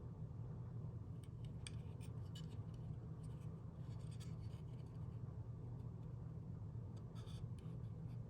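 Faint scratching and light clicking in three short clusters, like small handling or rubbing noises, over a steady low hum.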